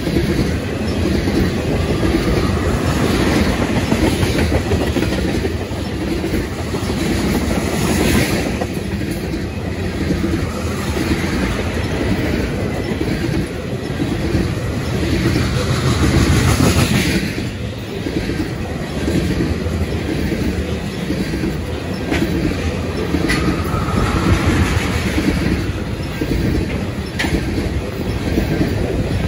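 A freight train of loaded crude-oil tank cars rolling past: steel wheels on the rails give a steady, loud rumble with a rhythmic clickety-clack as the wheel sets pass.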